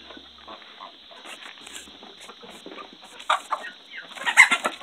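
A flock of domestic chickens clucking as they scratch and peck, growing busier and louder about three seconds in, with the loudest cluster of calls shortly before the end.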